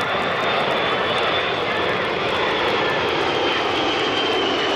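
A formation of six Kawasaki C-1 military transports flying over, their twin Pratt & Whitney JT8D turbofans giving a steady, loud jet rush. A high engine whine rides on top and slowly drops in pitch as the formation passes.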